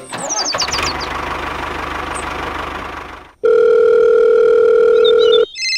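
Telephone sound effect: a loud steady dial tone starts suddenly about three and a half seconds in and lasts about two seconds. Before it there is a steady noisy whirr with a low hum. A higher-pitched phone tone begins near the end.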